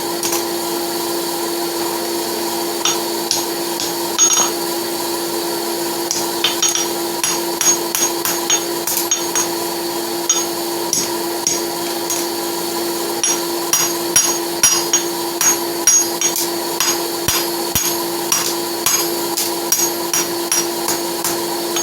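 Blacksmith's hammer tapping a mild-steel horseshoe on the anvil, light irregular blows that close up the heart shape. The blows are few in the first seconds and then come much more often. A steady hum runs underneath.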